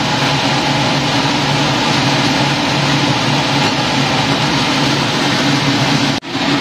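A steady fan-like whir with a low hum, which cuts out for a moment near the end.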